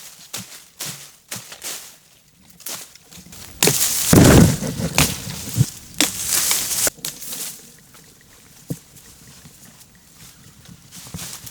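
Sharp knocks in quick succession, then a few seconds of loud scraping and rustling, with one more knock near the end.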